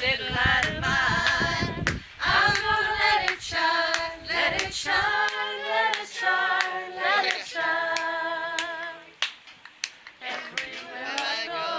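Gospel choir singing a cappella, with hand claps keeping a steady beat about every two-thirds of a second.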